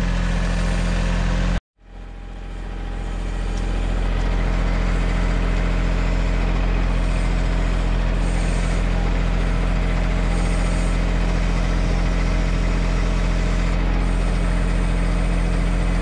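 Mahindra 1626 compact tractor's three-cylinder diesel engine running steadily while the backhoe is worked. The sound cuts out briefly near the start and fades back in.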